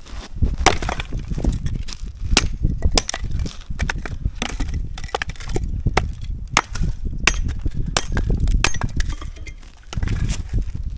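Old, blackened wood being broken up for firewood: a dozen or so sharp, irregular cracks and thuds with splintering.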